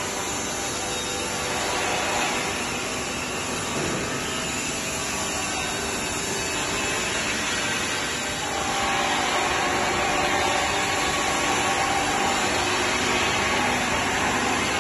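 Steady mechanical workshop noise, a constant machine-like hiss and hum, growing louder about eight seconds in.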